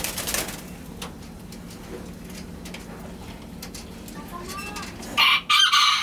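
A brief noisy burst at the start, then about five seconds in a chicken calls loudly in the background, the loudest sound here.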